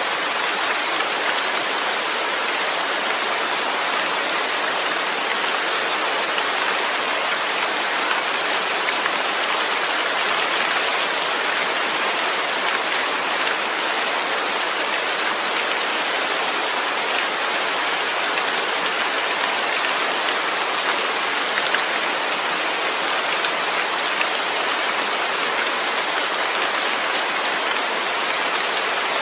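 Steady rain falling, an even hiss of many drops striking surfaces.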